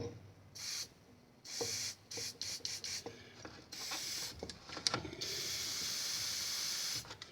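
Aerosol lubricant spraying in several short hissing bursts, then one steady spray of about two seconds near the end, onto the worn bearings of a furnace draft inducer motor. A few sharp clicks come between the sprays.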